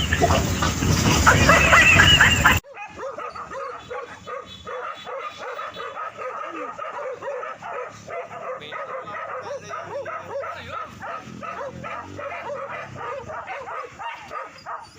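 A pack of hunting dogs barking and yelping in quick, overlapping cries that run on without a break. Before them, a loud noisy stretch cuts off abruptly about two and a half seconds in.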